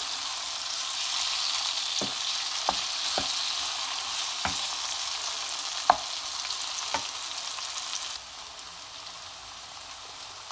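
Food sizzling in a pan as it is stirred, with a few sharp knocks of a utensil against the pan. The sizzle turns quieter about eight seconds in.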